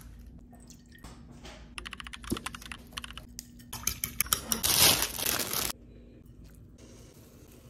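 Kitchen clicks and taps as eggs are cracked into a ceramic bowl, then egg batter whisked fast in the bowl, the loudest part, for a second or two before it cuts off suddenly.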